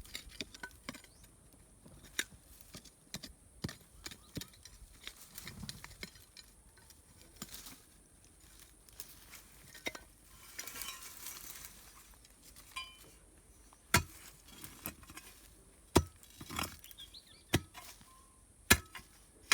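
A metal digging tool striking stone as a root is dug out of rocky ground: irregular sharp clinks and knocks, a second or more apart, with the loudest strikes in the second half and a short stretch of scraping about halfway through.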